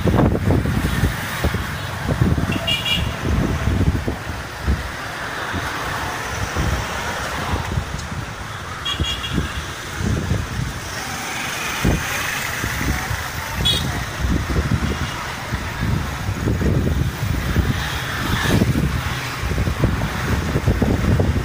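Motorbike-drawn tuk-tuk riding through city traffic: steady engine and road noise with a fluctuating low rumble. Short high horn beeps sound three times, about 3, 9 and 14 seconds in.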